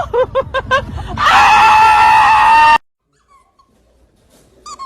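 Small dog yelping in a quick run of about six short, high yips, then one long, loud, high-pitched cry that cuts off suddenly about halfway through; after that, near silence.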